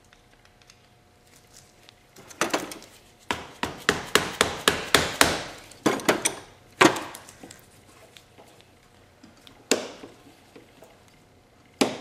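Hammer blows on a screwdriver wedged behind a seized motorcycle gear shift lever, driving it off its shaft: a quick run of about a dozen sharp knocks, about three a second, then single knocks spaced a few seconds apart.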